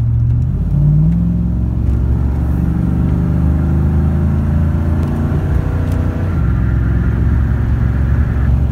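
Ford F-150 pickup heard from inside the cab, accelerating: the engine revs climb, drop back as the 4R70W automatic (rebuilt valve body and shift kit) upshifts about six seconds in, then climb again. A higher whine joins in the second half and stops just before the end.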